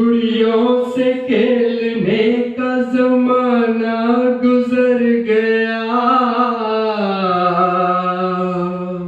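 A man singing unaccompanied into a handheld microphone, drawing out long, slightly wavering notes. Near the end he holds one lower note steady for about two seconds.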